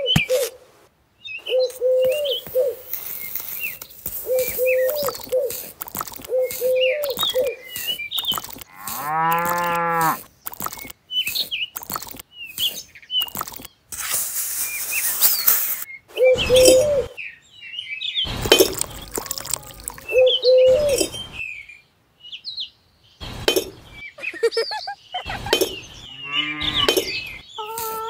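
Farmyard sound: a cow moos, one long low call about nine seconds in, with a second stacked call near the end. Around them run bird chirps, short repeated animal calls and scattered clicks.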